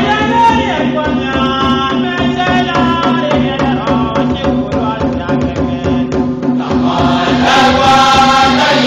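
Church choir singing together, many voices holding sustained notes, with a steady beat of hand-clapping under the singing.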